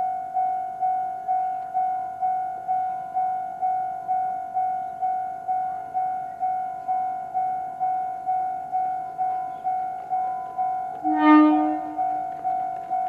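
Electronic railway-crossing alarm of the JR Central type, ringing steadily at a little over two strikes a second. About eleven seconds in, a short, louder train horn blast sounds over it.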